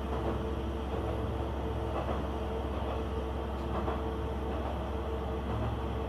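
A KiHa 120 diesel railcar heard from inside the cabin: a steady low rumble with a constant hum, and a few faint clicks about 2 and 4 seconds in.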